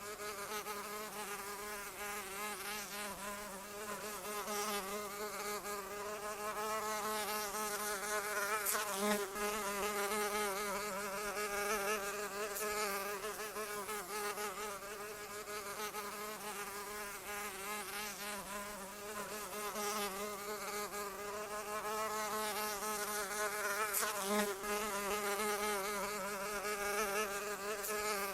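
Continuous buzzing of a flying insect's wingbeat, one steady drone with a constantly wavering pitch that swells louder now and then.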